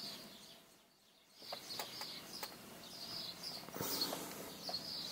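Small birds chirping over and over in the background, with a few faint clicks. The sound drops almost to silence for about half a second roughly a second in.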